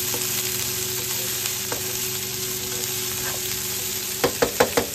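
Chopped onions and red bell pepper sizzling in hot oil in a nonstick frying pan, stirred with a plastic spatula. Near the end, about four quick sharp knocks of the spatula against the pan.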